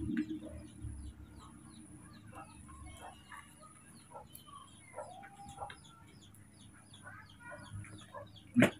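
Faint, scattered short chirps and clucks from animals, with one sharp click shortly before the end.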